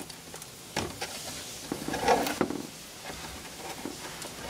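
Plastic housing of a variable-frequency drive being handled as its top cover is worked loose: a few light clicks and a brief scrape about two seconds in.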